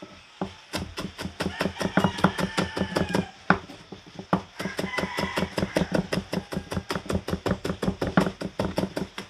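Knife chopping onion on a cutting board: rapid, even strokes, about five a second, with a few louder chops.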